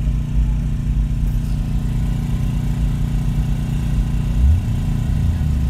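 An engine idling steadily: a constant low hum, heard from inside a car, with a brief swell about four and a half seconds in.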